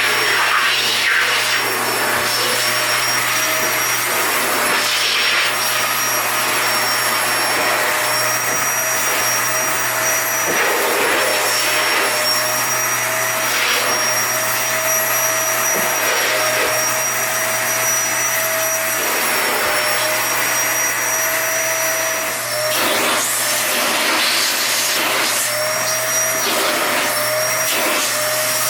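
Toshiba VC-S960 vacuum cleaner running steadily with a high motor whine over the rush of air, the whine wavering slightly in pitch and the airflow noise rising and falling now and then.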